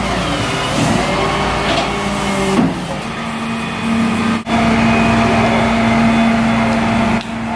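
A steady engine hum with a droning tone, most likely the flatbed tow truck's engine running. The tone shifts about two and a half seconds in and then holds level, and the sound drops out for an instant a little past halfway.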